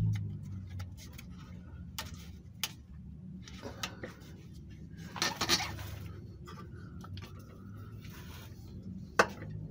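Plastic-and-metal quick-connect fuel line fittings being handled and pushed onto a diesel fuel filter: scattered small clicks and clinks, a brief rustling noise about five seconds in, and a sharp click near the end, over a low steady hum.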